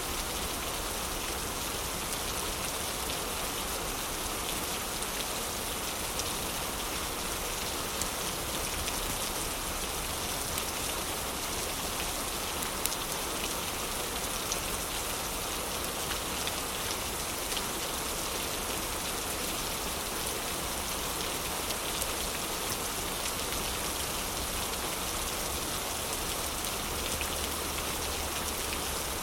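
Heavy rain falling steadily as an even, unbroken hiss, with a few faint sharp ticks scattered through it.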